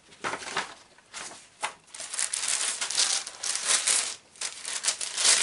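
Plastic packaging crinkling and rustling as a parcel is tipped out of a cardboard mailer and handled. A few short rustles at first, then steadier crinkling from about two seconds in.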